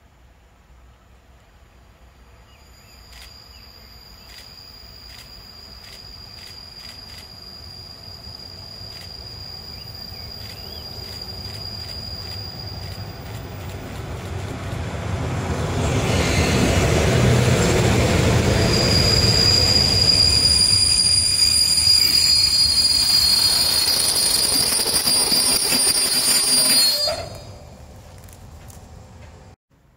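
Freight train hauled by a Škoda class 182 electric locomotive approaching and passing while braking: wheels rumbling on the rails under a high, steady squeal, growing louder as the train draws near. The sound cuts off sharply near the end.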